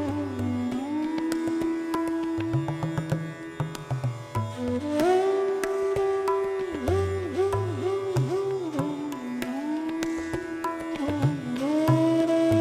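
Background music in Indian classical style: a lead melody that slides between long held notes, with quick wavering ornaments partway through, over a low, shifting accompaniment.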